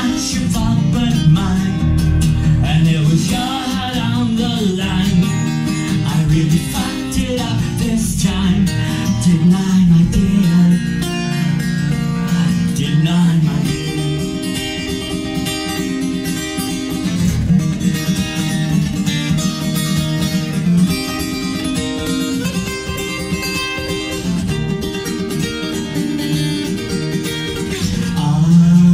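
Steel-string acoustic cutaway guitar strummed steadily through an instrumental passage, with a man's wordless singing over it in the first half.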